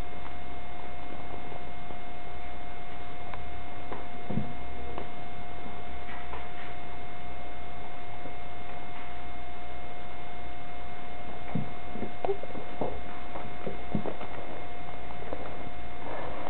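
Steady electrical hum with a constant tone, with a few faint taps and scuffles from cats playing on the floor, most of them in the second half.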